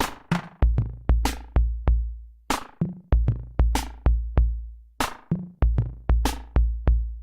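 Electronic background music with a drum-machine beat: deep bass-drum hits and sharp percussion strikes, about two to three a second.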